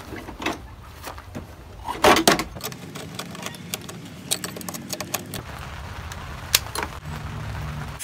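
Scattered clicks, knocks and clatter of a pickup's plastic grille being pulled loose and handled while a chrome air horn is fitted to it, with the loudest knocks about two seconds in.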